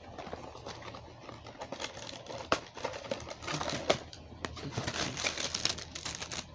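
Crinkling and rustling with scattered sharp clicks as an action figure and its small plastic accessories are handled; two clicks, about two and a half and four seconds in, stand out as the loudest.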